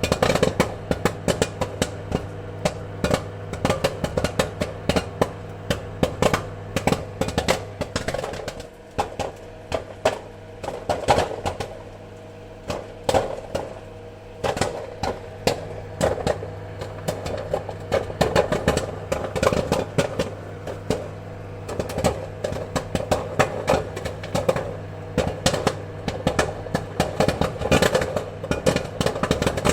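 Popcorn kernels popping in quick, irregular succession over a steady low hum. The pops thin out for a few seconds about a third of the way in, then come thick again.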